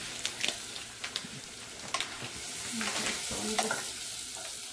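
Food sizzling as it fries in a pan, with a utensil stirring it and clicking and scraping against the pan several times.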